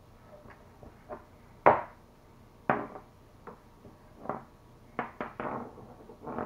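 Scattered knocks and clicks from a webcam being handled and clipped onto the top of a computer monitor. The two loudest come about two and three seconds in, with a quick run of clicks near the end.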